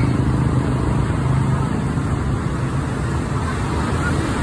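Diesel engine of a large intercity coach running steadily as it rolls slowly up at close range, with street traffic around it.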